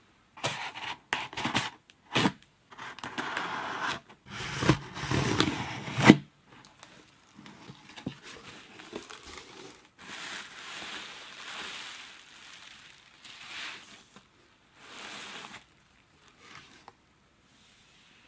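Phone retail box and its packaging being opened and handled, in irregular noisy bursts of rustling and scraping. The bursts are louder through the first six seconds, where a sharp click ends them, and softer after that.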